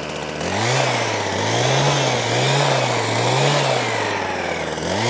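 Petrol hedge trimmer's small two-stroke engine revved up and down about four times in quick succession as it cuts the hedge, easing back toward idle near the end before revving again.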